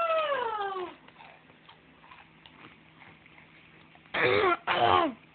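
Vocal sounds: one long high call that rises and then falls in pitch, then about four seconds in two short, harsh calls in quick succession, each sliding down in pitch.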